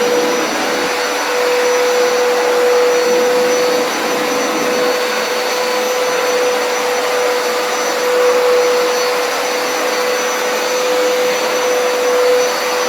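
Hoover Power Scrub Deluxe carpet cleaner running at full speed while scrubbing and suctioning a wet carpet: a loud, steady motor whine over the rush of its suction.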